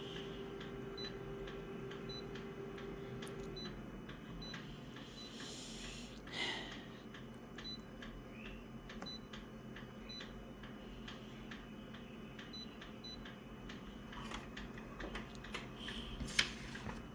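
Quiet room tone with a faint steady hum that stops a few seconds in, a faint ticking about twice a second, and a few scattered clicks, the sharpest near the end.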